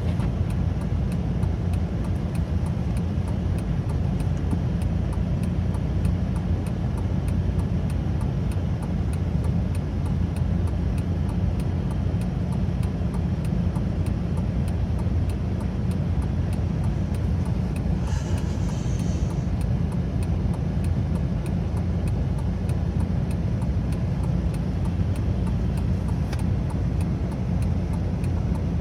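Steady drone of a car driving, heard from inside the cabin: a constant low rumble of engine and road noise. A brief high-pitched sound comes about two-thirds of the way through.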